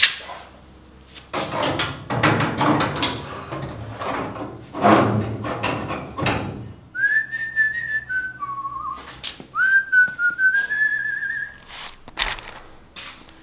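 A person whistling a short wavering tune for about four seconds, after a few seconds of rustling and scraping handling noise, with scattered clicks and knocks.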